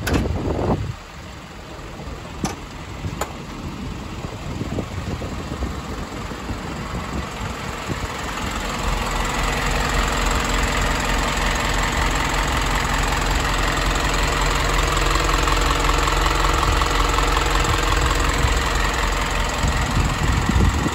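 Isuzu NPR HD's 5.2-litre four-cylinder diesel idling with a steady diesel clatter, growing louder from about eight seconds in. A brief loud rustle comes right at the start.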